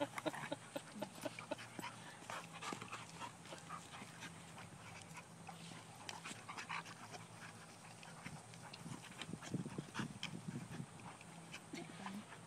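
Dogs play-wrestling, panting and scuffling, with many short clicks and scrapes throughout and a few louder low rumbles about nine to eleven seconds in.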